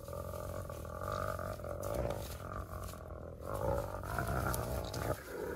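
Spotted hyena growling, a drawn-out pitched growl that carries on with only brief breaks, as it confronts a pack of African wild dogs at their kill.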